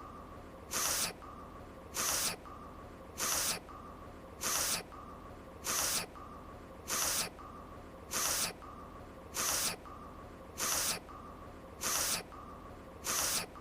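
A voice-acted anime character sniffling: a short, sharp sniff repeating evenly about every 1.2 seconds, as a looped clip, with a faint steady tone between the sniffs.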